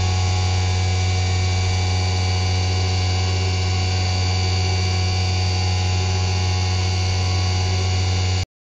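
CNC vertical mill cutting an aluminium part with an end mill: a loud, steady whine of many fixed tones over a deep hum. It cuts off suddenly near the end.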